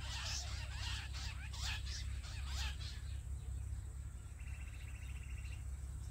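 Jungle bush quail calling: a quick run of chirps for the first three seconds, then it dies away. Near the end comes a short, fast, evenly pulsed trill.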